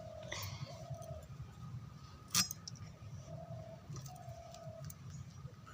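Pigeons cooing in short repeated notes, with one sharp clink about halfway through.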